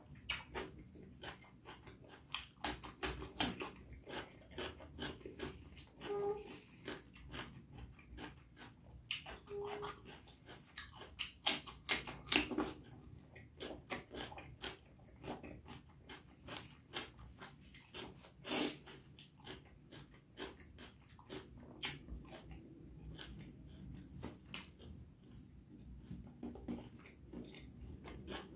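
A person chewing a mouthful of beef curry and rice up close, with irregular wet mouth smacks and clicks.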